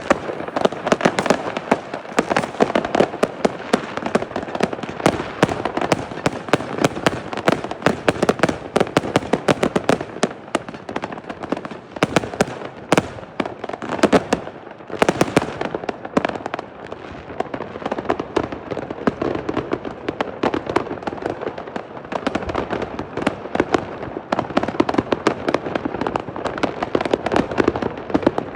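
Many consumer fireworks and firecrackers going off at once in the street, a dense unbroken crackle of bangs and pops overlapping each other.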